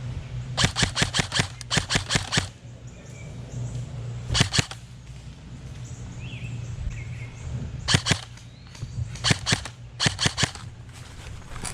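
Airsoft guns firing in bursts of rapid sharp shots: a long run about a second in, a short burst near the middle, then three more quick bursts near the end.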